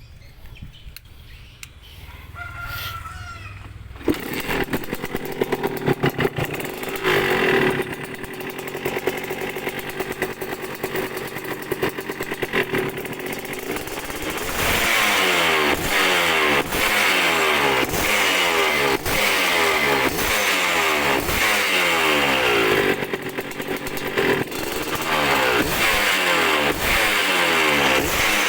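Kawasaki Binter KE125's single-cylinder two-stroke engine catching about four seconds in and running at idle. From about halfway through it is revved repeatedly, the pitch rising and falling with each blip of the throttle.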